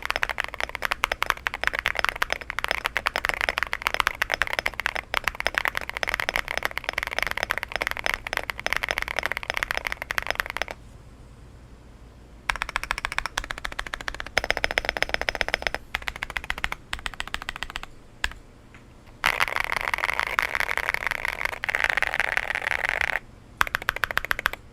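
Rapid typing on a mechanical keyboard fitted with factory-lubed Akko Botany switches (PA12 top housing, PA6 bottom, Pro stem) in an M1V3 board: a dense run of mid-pitched key clacks, pausing briefly about eleven seconds in and again near the end, with a sparser stretch of separate keystrokes in between.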